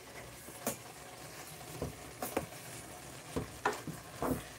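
Wooden spoon stirring soaked dried fruit in a non-stick pot, with irregular soft knocks and scrapes of the spoon against the pot, about six in a few seconds.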